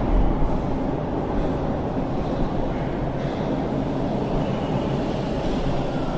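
Subway train in motion, heard from inside the car: a steady running rumble of wheels and motors on the track.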